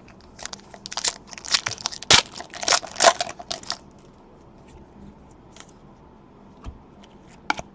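Trading cards and their packaging being handled, a quick run of rustling, crackling clicks lasting about three seconds, then quiet apart from a single click near the end.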